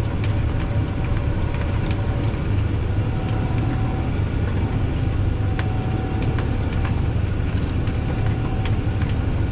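Fendt tractor running under load while pulling a Kverneland round baler through silage: a steady low engine drone with faint whining tones and scattered light clicks from the machinery.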